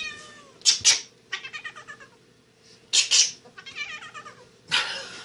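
A cat meowing and yowling in stuttering calls, broken by short harsh bursts of noise, the loudest about a second and three seconds in.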